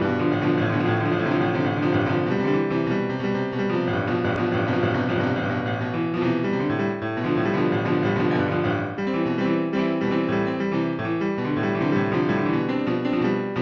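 Instrumental piano music with no singing: held chords and notes moving at a slow, steady pace.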